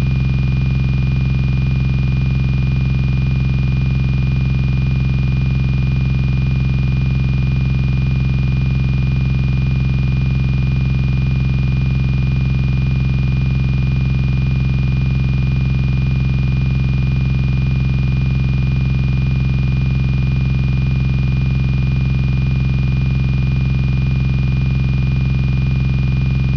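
A loud, unchanging electronic buzz: a low hum with a rapid pulse and a steady high whine on top, frozen in place like a stuck recording, cutting off abruptly at the end.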